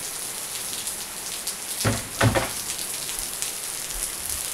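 Heavy rain pouring down, powerful, with many close drops ticking. About two seconds in come two brief louder sounds.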